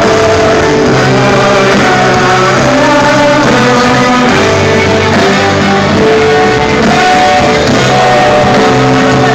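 Live rock band playing loudly, guitar among the instruments, with long held notes that shift pitch every second or so.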